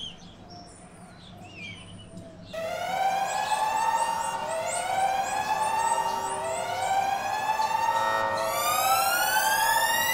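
A few short bird chirps over a quiet background. About two and a half seconds in, a loud wailing siren-like tone starts, rising and falling in repeated sweeps, and near the end it glides steadily upward.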